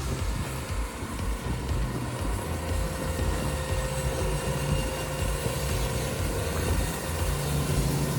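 Portable sawmill's engine running steadily with a constant hum.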